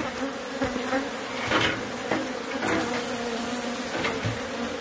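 A mass of Africanized honey bees buzzing steadily around their opened nest in a wall, stirred up as their comb is being cut away. A few light knocks sound over the hum.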